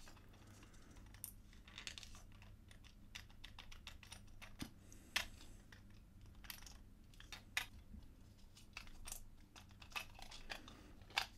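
Irregular light clicks and taps of a 3D-printed plastic puzzle box being turned and pressed in the hands, with a sharper click about five seconds in and another near the end.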